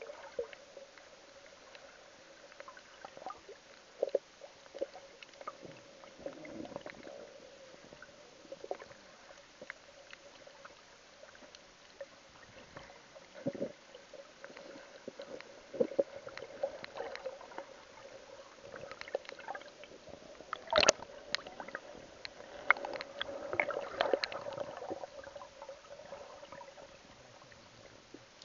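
Muffled underwater sound picked up through a camera's waterproof housing: water moving, with a steady low hum and scattered clicks and knocks, which are sharpest and most frequent about three-quarters of the way through.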